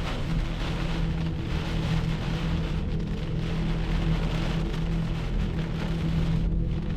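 Heavy rain pelting a vehicle, a dense steady hiss with a low steady hum underneath.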